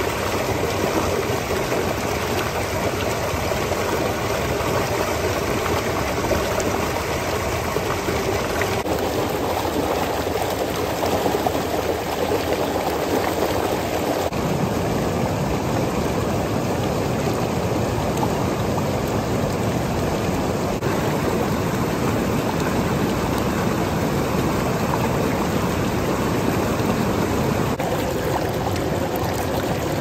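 River water rushing and splashing over stones in a shallow, fast run: a steady rush whose tone shifts a few times, about 9, 14 and 28 seconds in.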